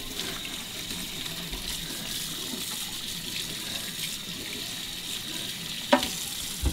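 Kitchen tap running water into a sink, steady, with a sharp knock about six seconds in; the water stops near the end.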